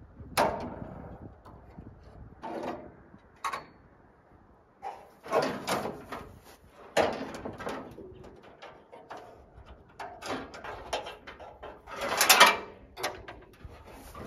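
Loose steel front fender of a Toyota FJ60 being wrestled free by hand: irregular scrapes, rattles and clunks of sheet metal shifting against the body, the loudest about twelve seconds in.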